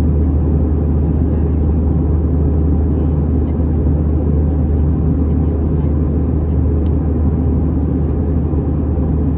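Steady cabin rumble of an Airbus A319-100 in the climb after take-off: the drone of its CFM56 engines and the rush of air, heard from a window seat. It is loud and even, deepest in the low bass.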